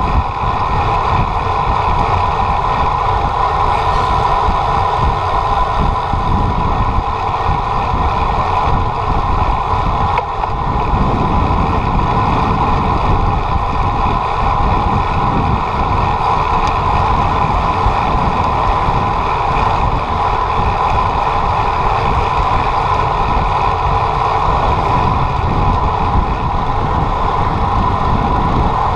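Motorcycle engine running at a steady cruise, its tone holding even, with wind rumbling on the microphone.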